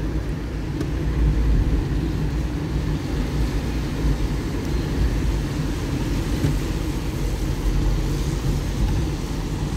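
Interior noise of a car driving on wet city streets: a steady low rumble of engine and tyres on wet pavement, heard inside the cabin.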